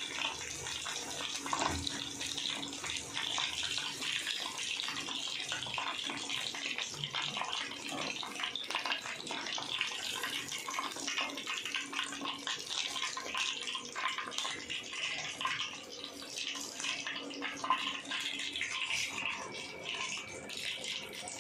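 Hot oil sizzling and crackling steadily as potato-wrapped chicken pieces deep-fry in a pan.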